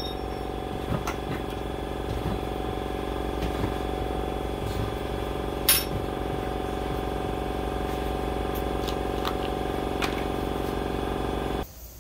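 A steady machine hum with a few light clicks and one louder metallic knock about six seconds in: the air die grinder and its hose being handled and laid down on steel tubing. The hum cuts off abruptly near the end.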